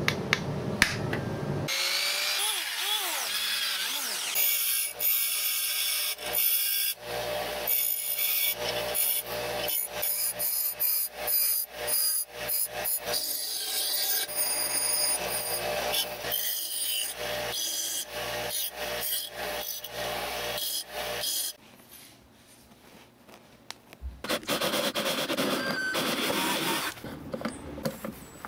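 Bench grinder grinding the end of a 3/16-inch steel rod flat, in several stop-start passes, after a short stretch of hand sawing. It goes quiet for a couple of seconds near the end.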